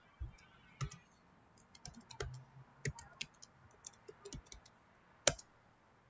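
Computer keyboard typing: an irregular run of short key clicks, with one sharper, louder keystroke about five seconds in.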